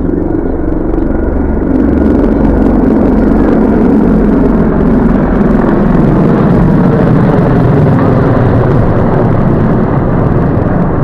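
A formation of four military helicopters flying low overhead, their rotors and turbine engines making a loud, steady din that swells about two seconds in.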